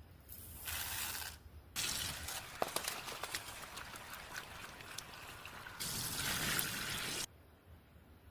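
Water being poured and splashing in a pot, with small clinks and knocks, in a few stretches that start and stop abruptly.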